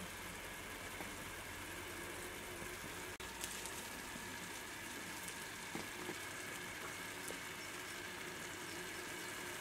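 Tomato sauce with meat patties simmering in a large pot, a steady low bubbling with a few faint ticks.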